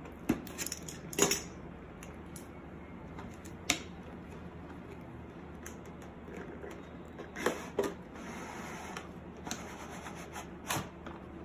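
A cardboard earphone box being unpacked by hand: a utility knife cuts its seal near the start, then the box is slid open and the inner tray pulled out, with cardboard rubbing and several sharp clicks and taps.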